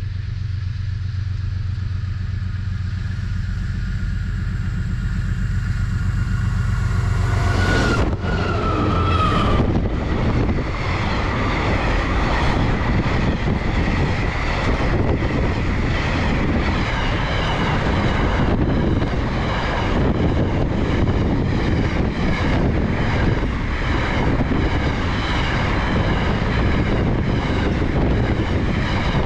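Diesel-hauled coal train: a steady low locomotive engine rumble, then from about eight seconds in a louder, noisy rush with regular clacks, as of wagons rolling past close by.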